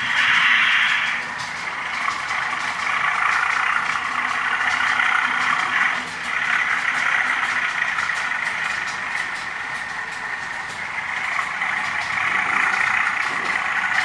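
Model diesel locomotive in British Rail blue running slowly along the layout track, a steady hissing run that swells and dips a few times.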